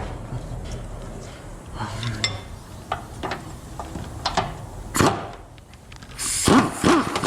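Metal hand tools clinking and a ratchet clicking in short spells as the 4L60 transmission's mounting nuts are tightened with a socket and wrench. A louder rattle of tool noise comes in near the end.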